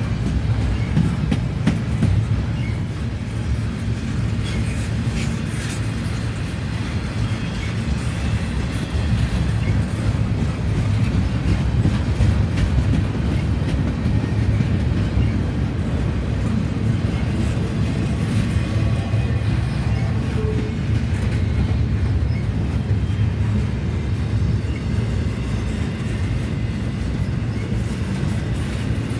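Double-stack intermodal container cars rolling past: a steady rumble of steel wheels on the rails, with occasional clicks.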